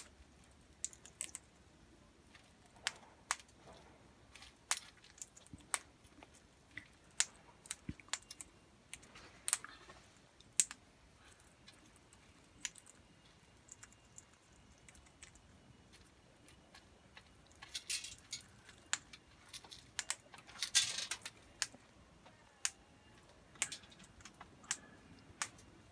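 King parrots cracking and husking seed: irregular sharp clicks, one or two at a time, with denser bursts of cracking about 18 and 21 seconds in.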